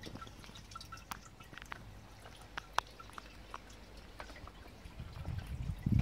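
Water trickling and dripping from a homemade 3D-printed garden water feature into its basin: a steady trickle with irregular small drips and splashes. A low rumble comes in near the end.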